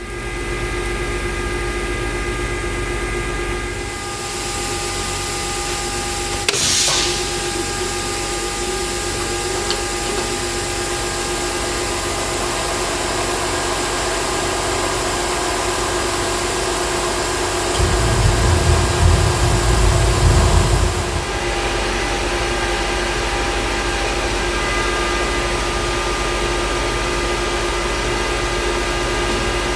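Multicam CNC router running, with a steady machine whine over a constant hiss. There is a short sharp hiss about six and a half seconds in, and a heavier low rumble for about three seconds past the middle.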